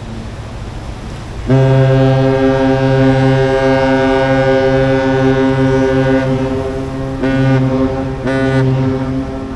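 The deep air horn of the thousand-foot Great Lakes freighter American Century. It gives one long blast of about five seconds, then two short blasts, sounded to clear the Duluth ship canal as she comes in.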